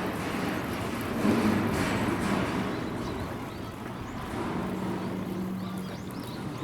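A motor vehicle running. It makes a steady low hum about two thirds of the way through, over a background of noise.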